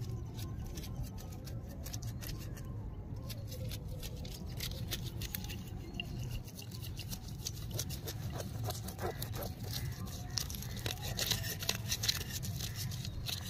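Knife scraping the scales off a live murrel (snakehead) fish, a run of quick rasping clicks that grows thicker and brighter about ten seconds in, over a steady low background noise.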